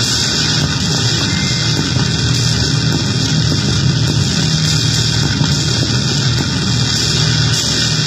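Homemade noise pedal on its first test, putting out a loud, steady harsh noise drone: a dense hiss over a low hum, unbroken and unchanging.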